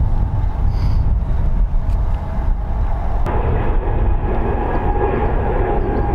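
Aircraft noise: a steady low rumble, joined about three seconds in by a louder, higher whine that carries a steady tone.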